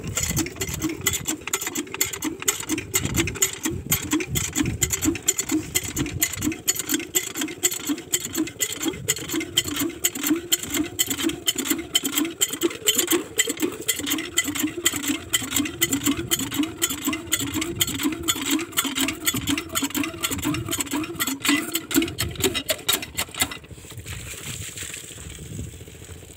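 Small Chinese diesel water-pump engine running at a steady idle, a fast, even beat of several firing pulses a second, until it stops near the end.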